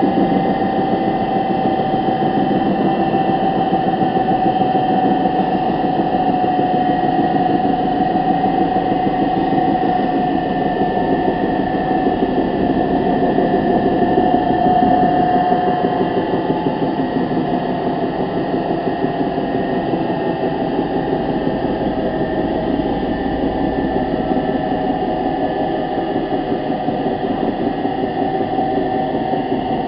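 Washing machine running: a steady motor hum with a fast, even rattle and a sustained whine over it.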